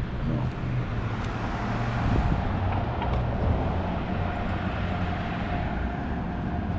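A vehicle's engine running steadily with a low rumble. A faint steady whine joins about three seconds in.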